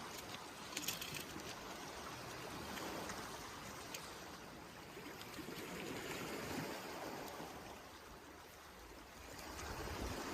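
Flowing water, like a stream, making a steady rushing sound that swells and ebbs gently, with a few faint clicks.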